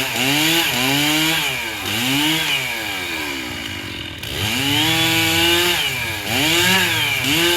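Chainsaw engine revving up and down several times, held at high revs for about a second just past the middle.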